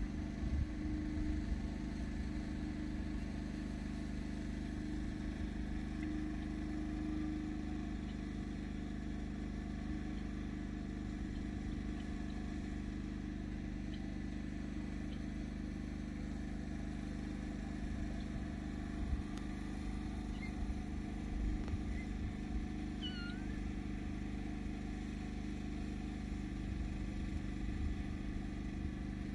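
Steady low drone of a running motor, with a faint, short kitten mew about three-quarters of the way through.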